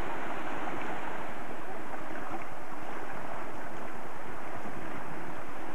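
Small sea waves washing and breaking over low rocks along the shore, a steady surging hiss, with wind buffeting the microphone.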